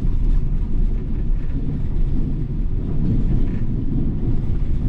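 Volvo B450R coach driving along, a steady low rumble of engine and road noise.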